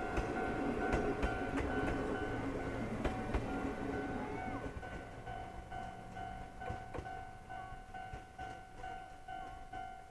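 Railway level-crossing alarm ringing, a single-pitched ding repeated quickly and evenly, stopping just before the end. Under it, the Paleo Express passenger carriages rumble and click over the rail joints as they pass, fading away in the first half.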